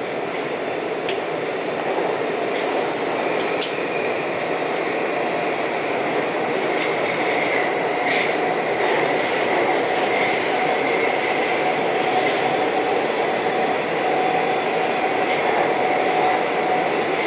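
Budapest Metro Line M4 train running through a tunnel, heard from inside the car: a steady rumble of wheels on rail that grows a little louder over the first few seconds, with a faint steady whine and a few light clicks.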